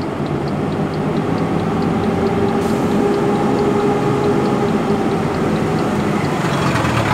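Truck engine running steadily and road noise as heard inside the cab while driving, with a faint regular ticking.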